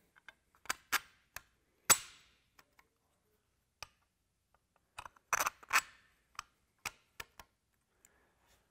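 Carriage bolts being slid by hand into the holes of a splint sleeve and spacer blocks: a string of separate sharp clicks and taps, the loudest about two seconds in and a close group of them between about five and six seconds.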